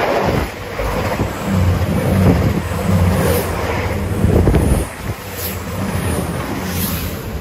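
Two coupled Class 222 Meridian diesel-electric multiple units passing the platform at speed: a steady drone from their underfloor diesel engines over the rumble of wheels on the rails.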